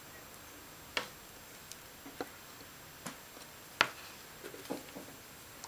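Light clicks and taps as a small circuit board and a soldering iron are handled during hand-soldering, about six scattered over a few seconds, the loudest a little under four seconds in.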